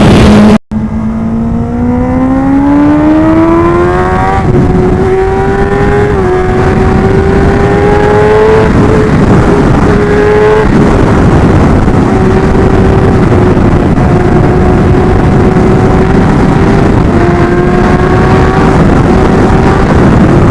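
2023 Kawasaki Ninja ZX-10R's inline-four engine accelerating hard, its pitch climbing through several quick upshifts in the first ten seconds, then holding a steady note at high speed. Heavy wind rushes over the microphone throughout.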